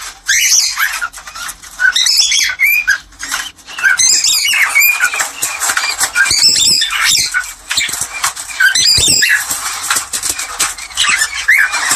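Cockatiels calling in a fast, continuous run of harsh squawks and short whistled chirps. These are the birds' mating calls, played to stir breeding pairs into condition.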